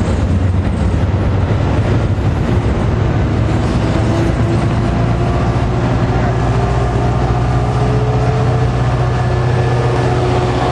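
Diesel commuter-train locomotive running with a loud, steady low drone; fainter engine tones rise slowly in pitch partway through.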